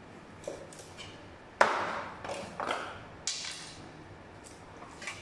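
Knife chopping through tuna flesh onto a cutting board: a handful of sharp knocks with short ringing tails, the loudest about a second and a half in.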